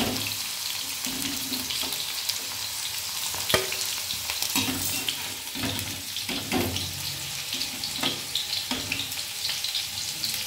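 Okra sizzling in hot mustard oil in a kadhai, with a spatula scraping and knocking against the pan as the fried pieces are lifted out, one sharp knock about three and a half seconds in.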